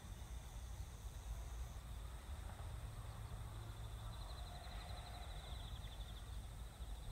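Faint outdoor ambience: a steady low rumble, with a brief high warbling trill from about four to six seconds in.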